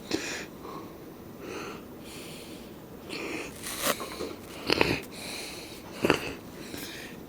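Low hiss and breath-like noise with three sharp clicks, about four, five and six seconds in.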